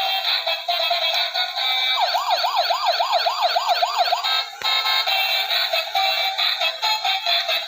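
A battery-powered toy police car's sound chip playing a tinny electronic tune. About two seconds in, a fast warbling siren cuts in for around two seconds, then the tune carries on.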